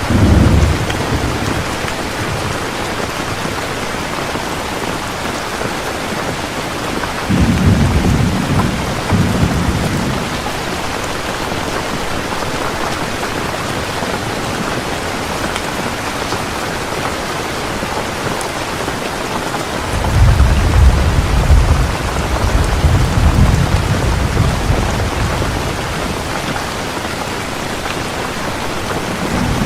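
Heavy rain falling in a steady hiss, with rolls of thunder: a short rumble at the start, another about seven seconds in, and a longer rolling rumble from about twenty seconds in that dies away over several seconds.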